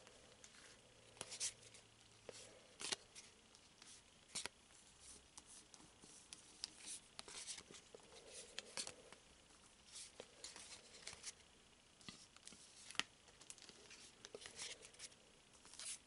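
Faint, scattered clicks and light rustles of Pokémon trading cards being handled and laid out.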